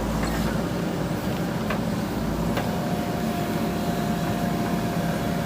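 JCB backhoe loader's diesel engine running steadily, with a thin steady whine joining about two and a half seconds in.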